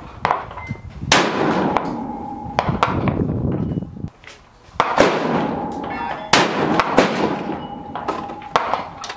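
A string of rifle shots, four loud reports with long echoing tails and several fainter shots in between. Some come well under a second apart, so more than one gun is firing.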